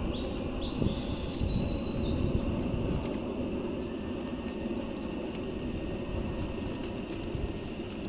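Sparrows giving two short, sharp high chip notes, about three seconds in and again near the end, with a faint thin whistled note early on, over a steady low rumble.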